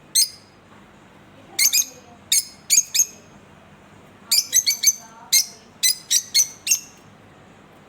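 Fischer's lovebirds chirping: short, sharp, high-pitched calls in small groups, with a quick run of several together about halfway through, falling silent near the end.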